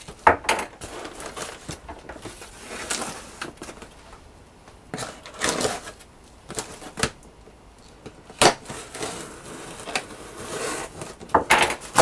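Hands handling a corrugated cardboard shipping box: irregular rustles, scrapes and taps on the cardboard, with a flap being pulled open near the end.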